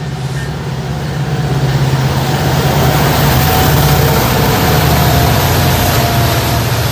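Diesel locomotives at the head of a BNSF coal train, among them an EMD SD70MAC, passing close by with a heavy, steady engine drone. The drone builds to its loudest around the middle and eases slightly near the end as the locomotives go by.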